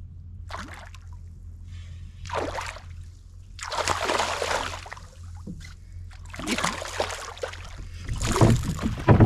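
Irregular splashes of water, a handful of them, loudest near the end, over a steady low hum.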